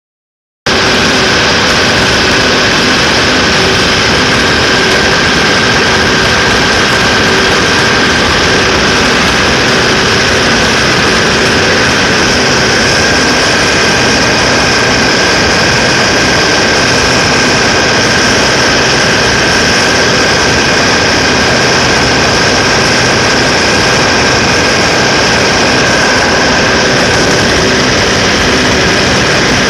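Cummins QSK45 V12 diesel engine running steadily at high speed during a check for misfires, with a steady high whine over the engine noise. It comes in abruptly about half a second in.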